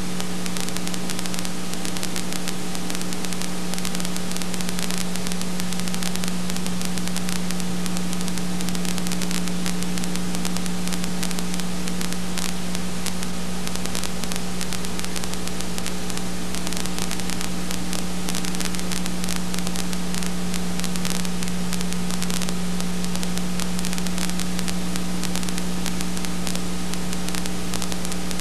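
Steady electrical hum with hiss and fine crackle, the noise of a soundless home-movie transfer; no sound from the filmed scene is heard.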